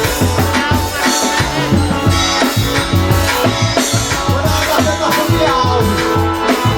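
Live forró band playing an instrumental passage: accordion chords and melody over bass and drums keeping a quick, steady beat.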